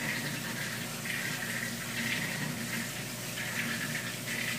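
Aquarium water bubbling steadily from an air bubbler's stream of bubbles rising through the tank, with soft irregular swells.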